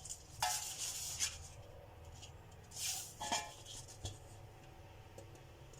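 Light rubbing and scraping handling noises, in two short spells, as a measure is held against a cake pan.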